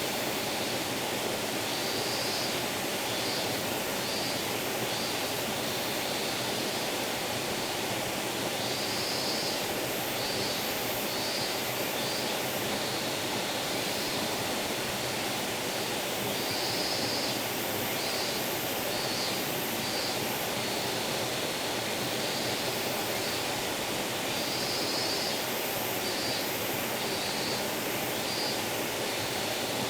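Small forest stream babbling steadily, with short high-pitched chirps coming in brief series every few seconds over it.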